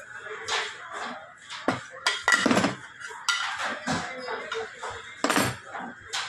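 Aluminium lid of a 7-litre handi-style pressure cooker being handled and worked on: irregular metallic clinks and knocks as the lid and its fittings are turned and tapped, with louder clusters a little past two seconds and about five seconds in.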